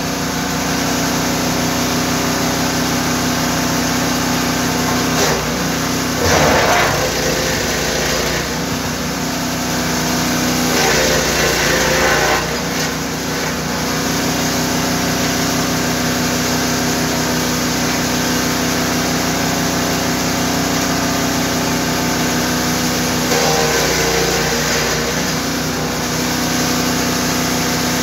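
GTM GTS 900 wood chipper's 9 hp engine running steadily at speed. Three times, at about 6, 11 and 23 seconds in, a rougher crunching noise rises and the engine pitch sags briefly, as it takes the load of chipping wood.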